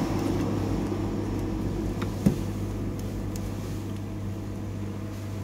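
Steady low electrical hum, with one sharp click about two seconds in.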